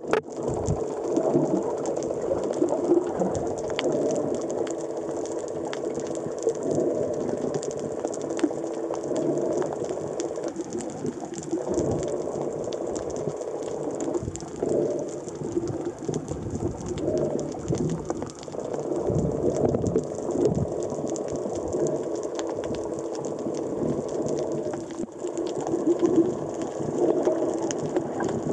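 Underwater ambience heard through an action camera's waterproof housing: a constant fine crackling over a muffled, wavering low hum, with water swishing as the diver kicks down.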